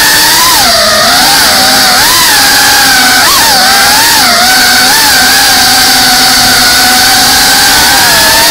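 FPV quadcopter's electric motors and propellers whining, heard from the drone's onboard camera. The pitch swoops up and down with quick throttle changes for the first few seconds, with a sharp wobble about three seconds in, then holds steady.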